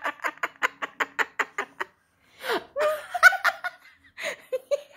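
A person laughing in a quick run of rhythmic ha-ha bursts, about six a second, that stops after about two seconds, followed by a few shorter laughs.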